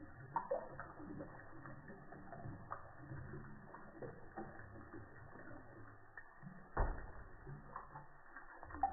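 A cat lapping water from a thin stream running from a kitchen tap, with the audio slowed down with the slow-motion picture so that it is pitched far down: a low bed of running water with irregular clicks and knocks from the tongue, and one louder knock about two-thirds of the way through.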